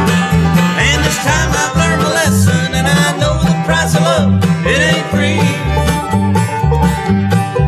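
Bluegrass band playing an instrumental break: fiddle, banjo, mandolin, acoustic guitar and upright bass, with the bass keeping a steady beat underneath.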